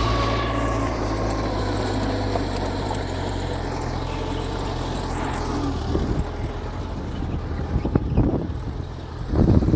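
Mitsubishi G2 bulldozer's diesel engine running steadily under work. Louder, irregular rumbling and knocking bursts come in around eight seconds in and again near the end.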